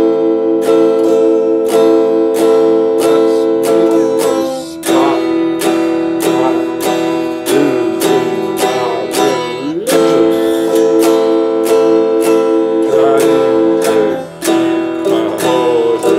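Electric guitar strummed in a steady rhythm, chords ringing and changing every few seconds.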